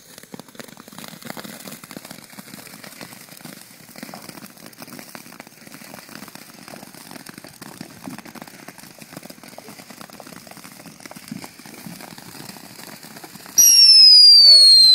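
Lit ground firework crackling and sputtering with a dense spray of small pops. Near the end a much louder whistle sets off, its pitch falling steadily.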